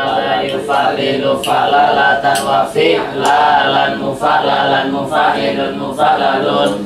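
Several male voices chanting Arabic verses of a grammar text together.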